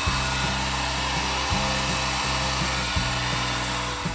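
Handheld hot-air blower running steadily with an even rushing hiss, cutting off suddenly near the end, as used to shrink tubing or seal mesh sleeving on an electrical cable. Background music with plucked bass notes plays under it.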